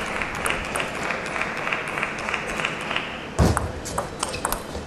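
Table tennis point: a steady hum of the hall with scattered clicks, then a heavy thump about three and a half seconds in, followed by quick sharp clicks of the celluloid ball off rackets and table in a short rally.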